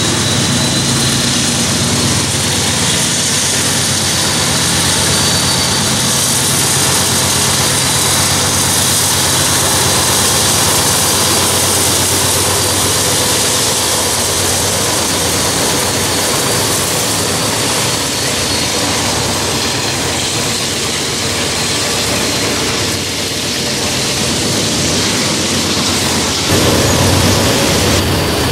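Diesel-electric freight locomotives passing close under power: a steady, loud engine drone over the rumble of steel wheels on rail. About two seconds before the end the sound jumps louder as a locomotive rolls right past.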